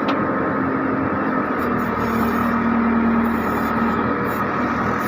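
JCB 3DX backhoe loader's diesel engine running steadily, with a steady droning hum.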